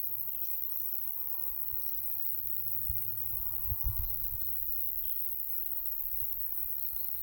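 Steady high-pitched chirring of grassland insects, with a few short bird chirps over it. Under them, a low wind rumble on the microphone, with gusts about three and four seconds in.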